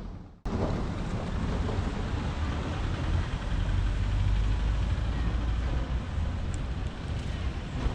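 A steady low rumbling noise with a hiss above it starts abruptly just after the start and runs on evenly.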